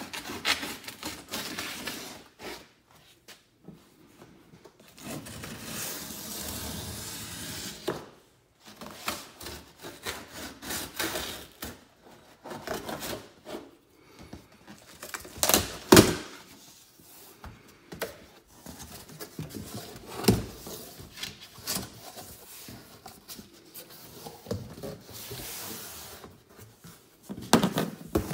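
Packing tape on a large cardboard box being slit with a box cutter, and the cardboard flaps scraped and pulled open, in irregular rustling stretches with a few sharp knocks, the loudest about halfway through.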